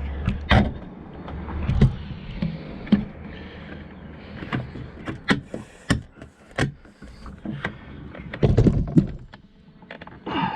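Plastic trim piece being pressed and clipped onto a Saab 9-5 door pull handle: a series of irregular sharp clicks and knocks with plastic scraping between them, loudest in a cluster near the end.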